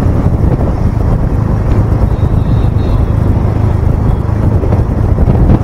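Motorcycle on the move on a city road: a steady low rumble of engine, road and wind noise on the microphone.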